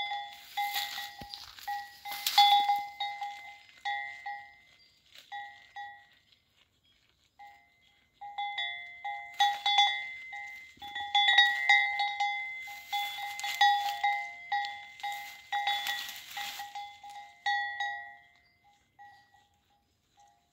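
Bell on a browsing goat's collar jingling in short, irregular clusters as the goat tugs at leafy branches, mixed with leaves rustling. It goes quiet for a couple of seconds near the middle.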